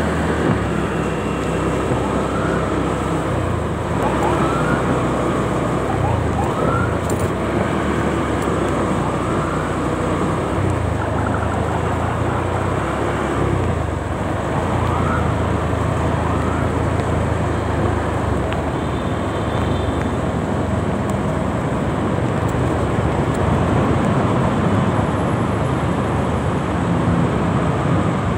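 Motorcycle riding slowly in dense city traffic: a steady mix of its engine and the surrounding cars and motorbikes, with a few short rising tones in the first half.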